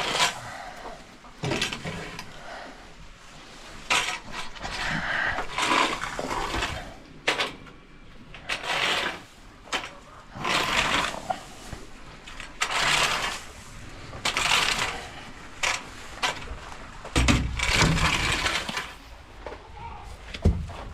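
Custom welded coop scraper being dragged across a chicken coop's droppings shields, scraping off manure in repeated strokes, one every second or two.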